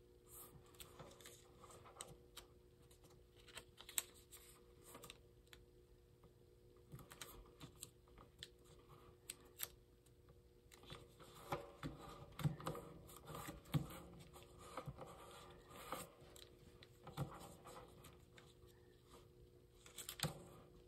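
Sheet of origami paper being folded and creased by hand: faint rustling, with scattered crisp taps and crinkles as fingers press the folds flat, thicker in the second half. A faint steady hum runs underneath.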